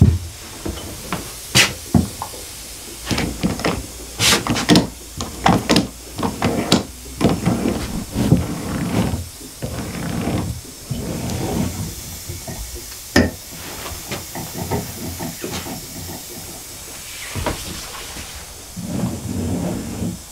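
Hand-operated canning seamer cranked around a metal lid to seal it onto a glass jar: a run of irregular metallic clicks and scrapes that thins out after about thirteen seconds.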